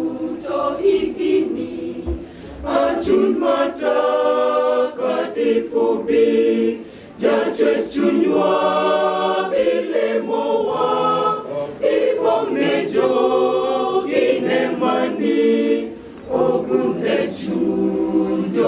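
Mixed choir of men's and women's voices singing a cappella, with short breaks between phrases about seven and sixteen seconds in.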